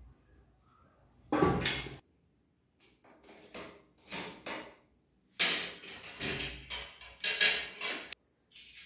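Metal parts of a bicycle being handled and fitted: clinks, knocks and rattles of a caliper brake and a metal mudguard against the fork, in several short bursts, some of which cut off abruptly.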